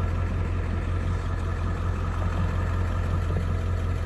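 Truck engine idling steadily in neutral, a low even drone heard from inside the cab.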